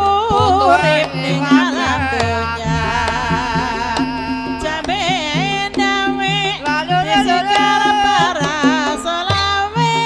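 Banyumasan gamelan music for an ebeg dance: a singer's ornamented, wavering melody over drums and a repeating pitched-percussion pattern.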